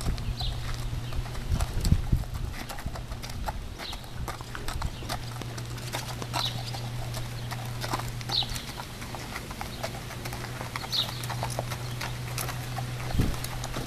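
Hooves of a Quarter Horse mare walking on gravel and dirt, a steady series of hoof steps over a steady low hum.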